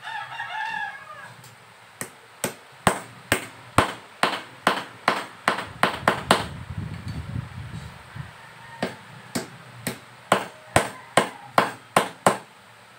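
A rooster crows once at the start. Then comes a long run of sharp knocks, about two a second with a short pause in the middle, as a knife point is jabbed repeatedly into a plastic pipe fitting.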